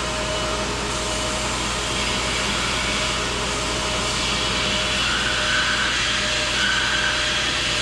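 Electric sander or grinder running steadily, grinding down the metal body of a pair of snap ring pliers so they clear a lip. A higher whine comes and goes in the second half.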